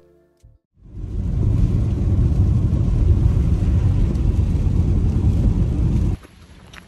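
Loud, steady low rumble of a car on the road, starting about a second in and cutting off suddenly near the end.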